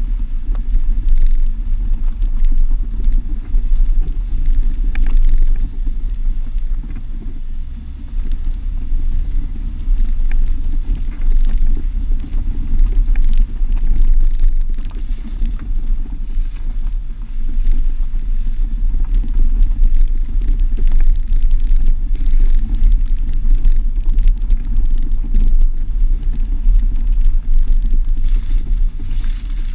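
Jeep driving off-road, heard from a microphone mounted outside on the driver's mirror: a continuous deep rumble of engine, tyres and wind buffeting the microphone, with scattered small knocks and clicks.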